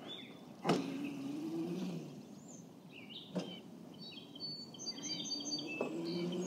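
Birds chirping and calling in short high notes, with a few sharp clicks. The faint steady whine of a small battery-powered dirt bike's electric motor sounds about a second in, then returns and swells near the end as the bike approaches.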